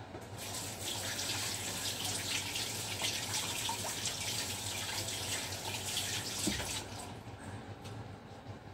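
Kitchen tap running into the sink with water splashing, falling away about seven seconds in.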